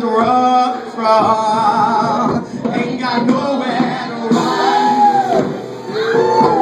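Live folk band playing a song: male and female voices singing together over banjo, fiddle and upright bass.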